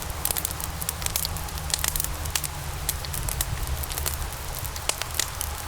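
Fire burning with a steady low rumble and frequent sharp, irregular crackles and pops.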